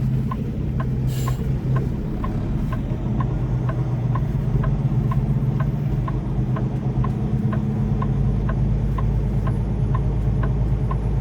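Semi truck's diesel engine running at low speed during parking manoeuvres, heard from the cab, with a steady tick about twice a second over it. The lowest part of the engine drone grows stronger about eight seconds in.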